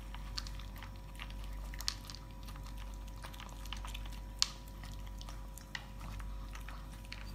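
A shih tzu, with a second small dog beside it, eating wet dog food: irregular wet smacks and small clicks of chewing, with one sharper click about four and a half seconds in.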